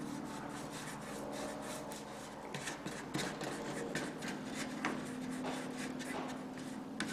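Fingers rubbing and pressing riffle cloth down onto a dry washer's metal riffle tray to bed it into silicone. The strokes come as an irregular run of short scratchy rubs over a steady low hum.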